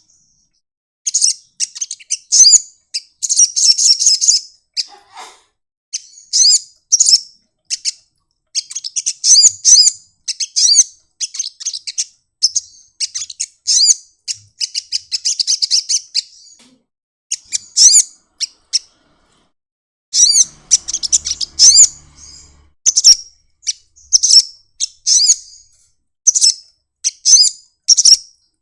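Sunbird singing: bursts of rapid, high-pitched chirping trills repeated over and over with short pauses between phrases.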